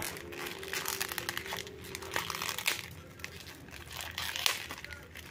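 Clear plastic wrap crinkling and crackling in irregular bursts as it is handled and pulled off a new LED flashlight.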